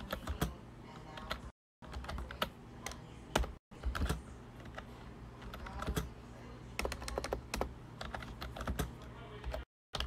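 Typing on a computer keyboard: a run of irregular key clicks over a faint low hum, with the sound cutting out briefly three times.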